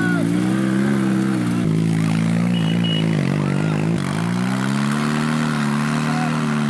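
Sidecar motorcycle engine revving under load, its pitch climbing and sinking slowly as the rig pulls through mud. The sound changes abruptly twice.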